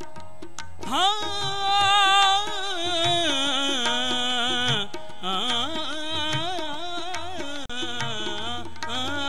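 Sikh kirtan: devotional singing in long, wavering held notes over harmonium, with tabla strokes. The voice comes in strongly with a rising glide about a second in.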